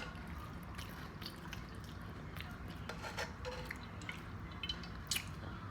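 Sauce being refilled into a bowl: soft dripping and liquid sounds with scattered light clicks and taps.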